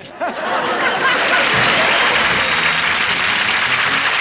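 Studio audience applauding: it swells up within the first half second and then holds steady.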